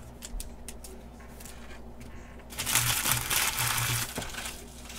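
Plastic wrapping crinkling and crumpling in the hands for about a second and a half, starting a little past halfway, after a few faint clicks from trading cards being handled.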